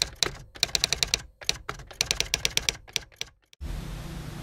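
Typewriter keys clacking in quick runs with short pauses, stopping about three and a half seconds in.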